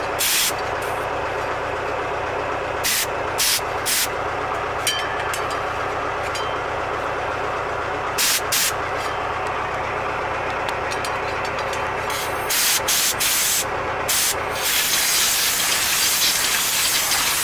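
Compressed-air blow gun blasting dust out of a clogged Fortschritt E303 mower radiator: about ten short hissing blasts of air, then one continuous blast from about fifteen seconds in. An engine idles steadily underneath.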